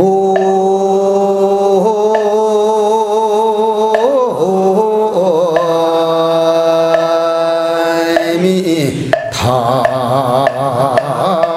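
Slow Buddhist chant: a voice holds long, steady notes, stepping to a new pitch every couple of seconds, with brief wavering turns about four seconds in and near the end.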